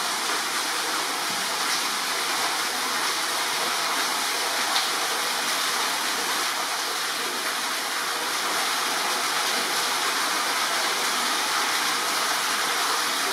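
Steady, even rushing noise like flowing water, with no distinct events apart from a faint click about five seconds in.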